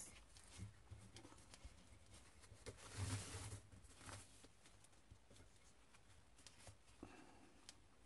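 Near silence in a small room, broken by faint scattered clicks and a brief soft rustle about three seconds in, as small craft pieces are handled.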